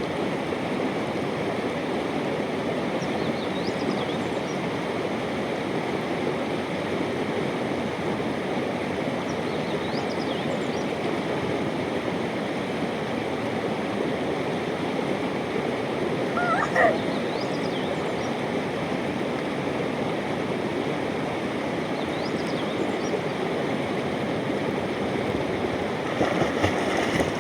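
Katakai River water rushing steadily over its bed, an even, unbroken flow.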